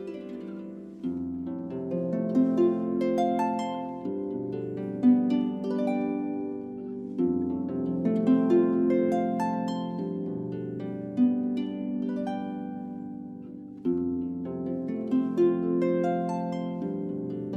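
Solo harp playing: plucked notes ring on over deep bass notes struck about every three seconds, in a gentle, flowing melody.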